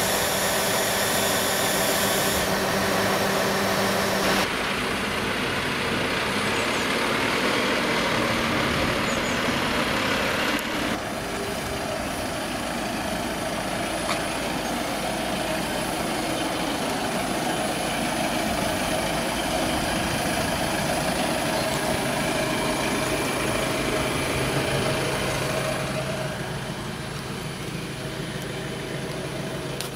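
Garbage truck's diesel engine running steadily. The sound changes abruptly several times, and near the end it is heard from inside the truck's cab.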